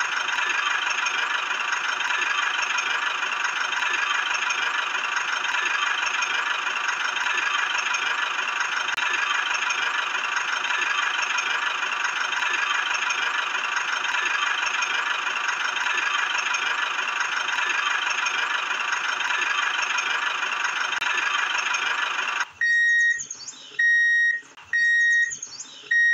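Small electric motor of a miniature toy tractor running steadily with a high whine, stopping abruptly about 22 seconds in. It is followed by four short, evenly spaced electronic beeps at one pitch.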